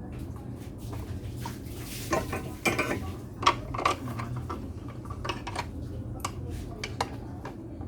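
Scattered light metallic clinks and clicks of tools and parts being handled during a speaker repair, thickest a couple of seconds in, over a steady low hum.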